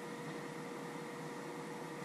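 Steady hiss with a constant hum underneath: room tone.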